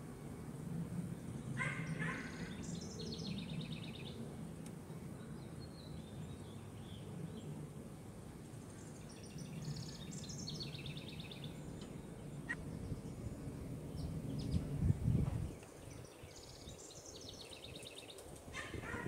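A bird singing the same phrase about every seven seconds, a few short notes followed by a rapid high trill, over a steady low rumble. A brief low bump about three-quarters of the way through is the loudest moment.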